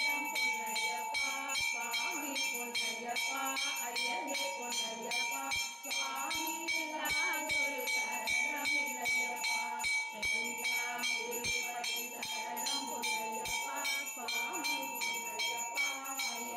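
Temple bells ringing rapidly and steadily, about three or four strokes a second, during an abhishekam. Devotional singing plays underneath.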